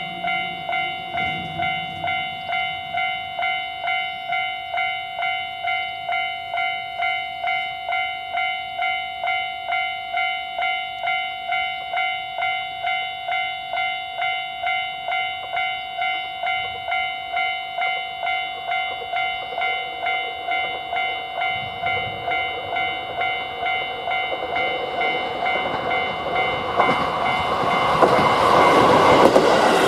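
Japanese level crossing warning bell ringing steadily in an even clang-clang rhythm, about one and a half strikes a second. About three-quarters of the way through, an approaching train grows louder, and its wheels are running past loudly near the end.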